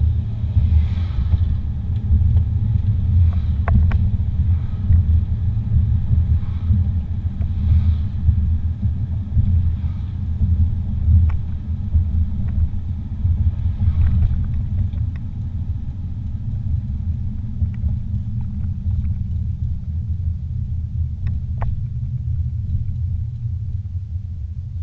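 Low, steady rumble of a car's road and engine noise heard from inside the cabin while driving, gradually easing off over the second half.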